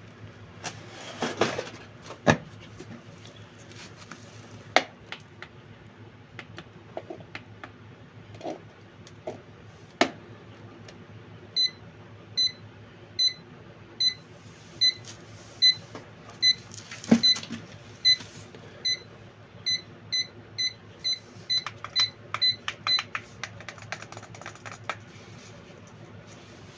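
A series of short electronic beeps, one high pitch each, about one every 0.8 s and quickening near the end, with scattered clicks and rustling of plastic being handled before the beeps start.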